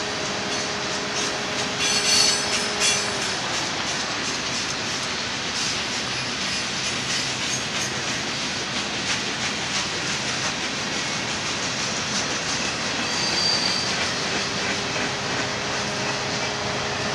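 Freight cars of a mixed manifest train rolling past: a steady rumble and rattle of steel wheels on the rails, with clicking over rail joints. Brief high wheel squeals come about two seconds in and again shortly before the end.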